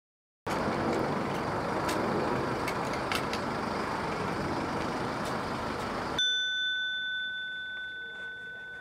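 Steady outdoor street noise with a few light clicks. About six seconds in, a doorbell rings with a single bell-like tone that slowly fades.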